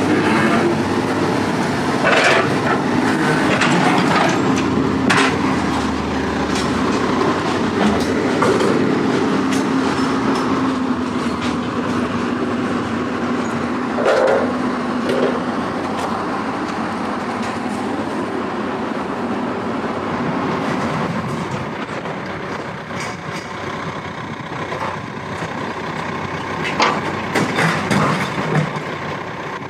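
Heavy diesel machinery running steadily, with rattling and scattered metal clanks and knocks. A low drone holds through the first half and then fades.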